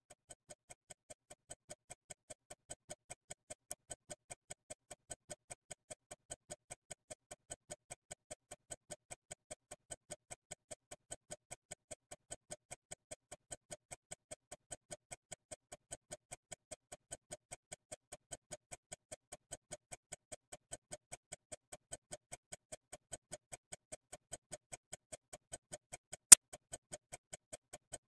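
A clock-ticking sound loop: steady, even ticking at about three ticks a second, fading in over the first couple of seconds, with one sharp, much louder click near the end.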